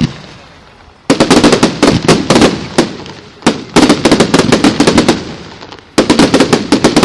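Fireworks going off in three rapid volleys of sharp cracks and bangs, each volley dying away before the next begins about a second later.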